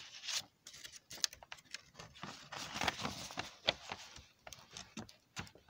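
Paper rustling and crinkling as a page of a drawing-paper picture book is turned, with a few small clicks and taps near the end.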